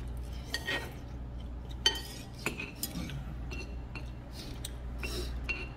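Metal spoon clinking and scraping against a ceramic bowl as the last of the jajangmyeon sauce is scooped up: a few separate sharp clinks with a short ring, over a steady low hum.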